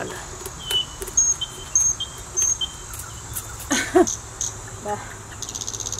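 Outdoor insect and bird chirping: short high chirps repeated about twice a second, then a fast high-pitched cricket trill setting in near the end. A brief louder voice-like sound about four seconds in, and a few light clicks.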